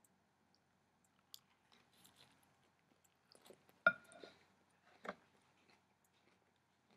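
A person chewing a mouthful of raw kale salad: soft, irregular crunching and wet mouth sounds. A sharp, ringing click about four seconds in is the loudest sound, with another click about a second later.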